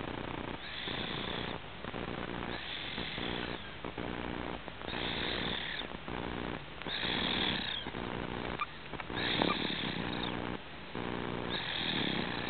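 Snoring: slow, rhythmic breaths about every two seconds, a hissing breath alternating with a buzzing, fluttering one.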